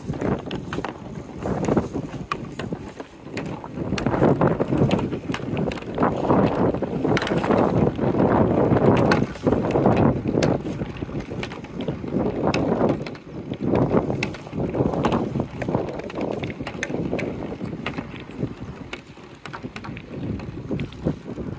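Marbles rolling down plastic rain-gutter chutes: a hollow rolling rumble that swells and fades as they travel, loudest about 4 to 10 seconds in, with sharp clicks as they drop from one chute into the next.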